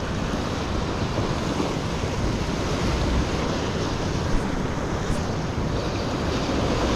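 Ocean surf washing against the rocks, a steady rushing noise, with wind buffeting the microphone in low rumbles.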